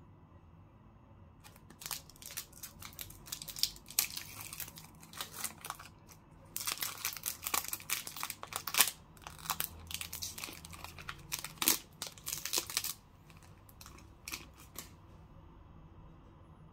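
A KitKat bar's wrapper being torn open and its foil inner wrap crinkled as the bar is slid out: crackling rustles in quick bursts that start about two seconds in and stop a few seconds before the end.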